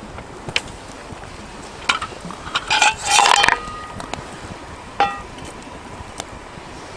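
Metal cookware and utensils being handled: scattered light clicks, then a dense clatter of clinking, ringing metal about three seconds in, and one more ringing clink near the five-second mark.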